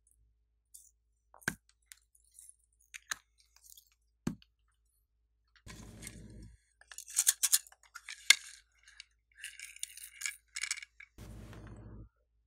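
Hollow plastic toy balls clicking and tapping a few times, then several seconds of crisp, crackly rustling.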